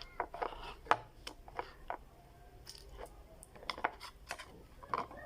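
Homemade glue-and-detergent slime being handled and mixed: scattered light clicks and soft sticky squishes at an uneven pace.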